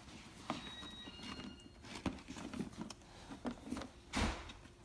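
A Great Dane tearing and chewing at a dog-biscuit package with her teeth: scattered crinkles, clicks and knocks, with one louder rustle about four seconds in.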